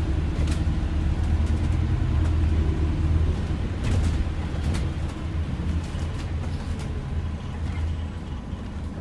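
Inside the cabin of an ADL Enviro 400H MMC hybrid double-decker bus on the move: a steady deep rumble and hum of the drivetrain and road, with a few light rattles, easing off somewhat over the second half.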